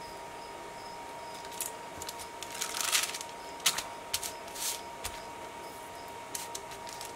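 Paper rustling and crinkling as torn book pages are smoothed down by hand and gone over with a paintbrush, with the longest rustle about three seconds in and a few light taps and swishes after it. A faint steady high hum runs underneath.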